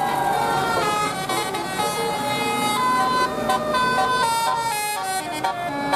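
Bus telolet horn playing a tune: a run of held notes from the multi-tone horn, stepping from pitch to pitch.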